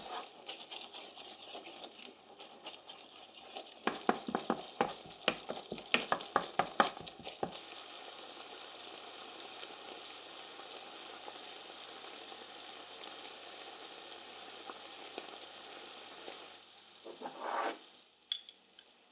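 Onions with mustard and honey sizzling in a frying pan as they caramelize. A few seconds in comes a quick run of wooden spoon strokes scraping and knocking against the pan, about three or four a second. Near the end there is a short, louder scrape.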